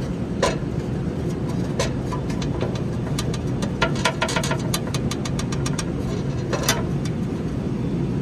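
Steady low mechanical rumble with irregular sharp clicks and knocks over it.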